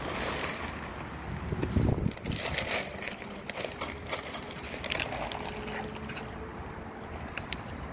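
Plastic bag of dry cat food rustling as it is handled, and kibble spilling out onto concrete with scattered clicks of pellets, busiest in the first few seconds.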